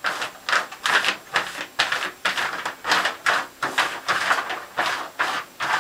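Plastic shower curtain crinkling and rustling in quick, uneven bursts, about three a second, as a cat bats and claws at it.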